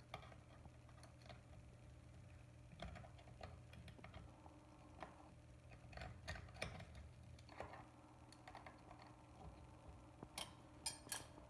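Faint scattered clicks and light metallic taps over a low steady hum, with a quick cluster of sharper clicks near the end: a V-bit being fitted by hand into a CNC router's spindle collet, with the spindle switched off.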